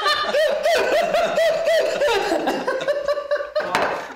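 Two men laughing hard together, a quick run of high-pitched laughs about four a second that dies away near the end.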